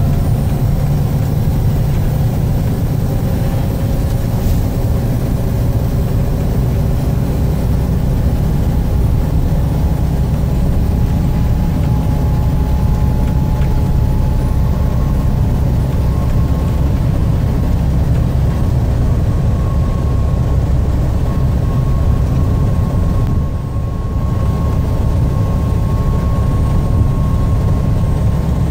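Steady low rumble of engine and road noise from inside a vehicle cruising on a highway, with a faint whine over it.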